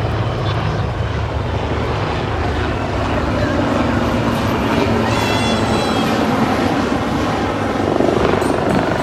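HAL Dhruv display helicopters flying over at low height, their rotor and turbine noise loud and steady. A brief high whistle-like tone comes about five seconds in, with voices faintly underneath.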